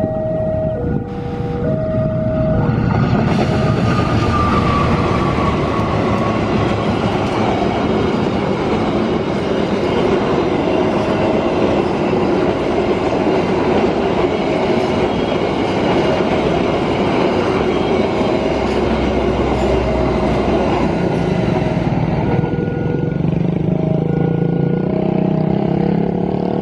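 Argo Dwipangga passenger train, a diesel locomotive hauling a long rake of coaches, passing close by at a level crossing: the rumble and clatter of wheels on rails swells a few seconds in, holds, and eases near the end as the last coach goes by. A two-note electronic beeping repeats on and off over it, the crossing's warning signal.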